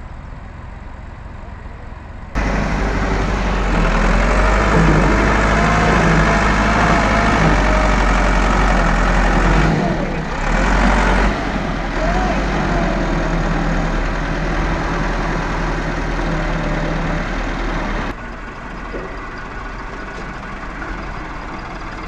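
Massey Ferguson 385 tractor's diesel engine running steadily while its front loader works. It gets much louder about two seconds in and drops back sharply near the end.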